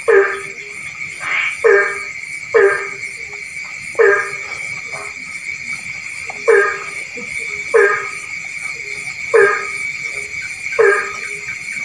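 Rice-field frog croaking, a run of short, loud, harsh calls repeated every second or two at an uneven pace, over a steady high-pitched trilling chorus.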